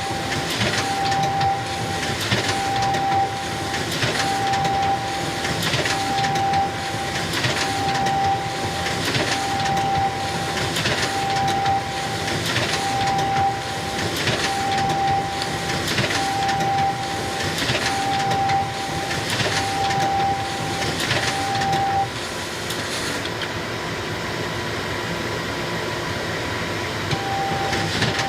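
Xerox photocopier running with a steady mechanical whir, plus a short tone and a swish that repeat about every one and a half seconds. The repeating cycle stops about 22 seconds in and starts again near the end, while the whir carries on.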